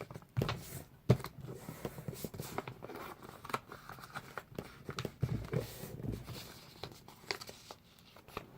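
Paper being handled at close range: irregular rustling and crinkling with scattered small clicks and taps.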